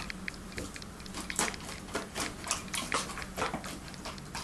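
A dog licking and smacking at peanut butter on a plastic plate: irregular wet clicks and smacks, starting about a second and a half in.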